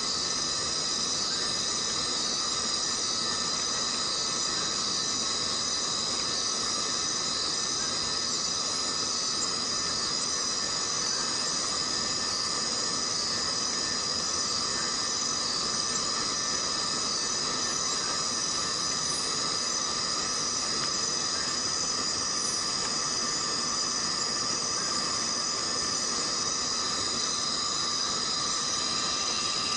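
Chorus of many cicadas: a steady, high-pitched buzzing drone of several layered pitches that holds without a pause.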